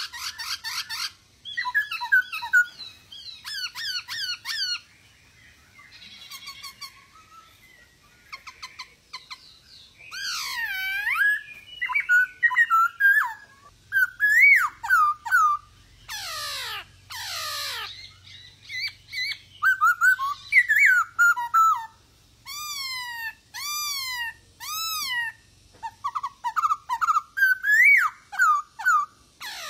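Male black-throated laughingthrush singing a varied song of whistled notes that slide up and down, broken by harsh rasping calls. In the second half it repeats a run of four or five identical arching whistles.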